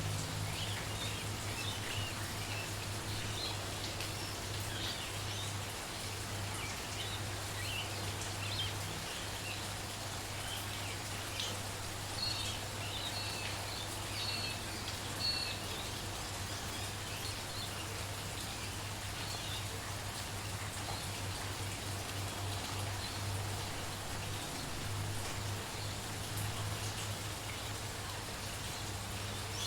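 Steady light rain pattering, with small birds chirping and singing in short phrases, busiest in the first half. A steady low hum runs beneath.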